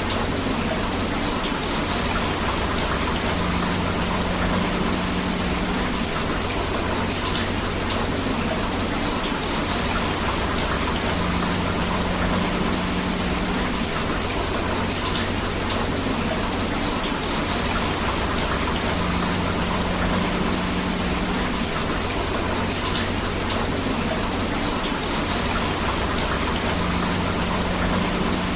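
Steady rain mixed with rushing river water, a dense even hiss with no gaps. The same low patch and faint high marks recur about every eight seconds, as in a looped recording.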